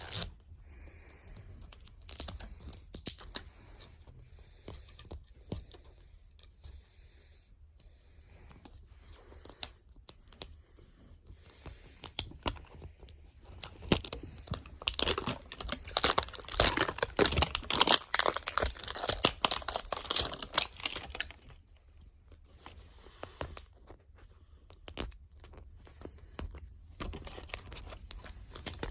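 Toy packaging being torn open and crinkled by hand, with scattered clicks and rustling that grow busiest and loudest about halfway through.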